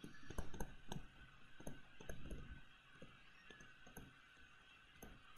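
Faint, irregular taps and clicks of a stylus writing on a tablet screen, thinning out after about three seconds.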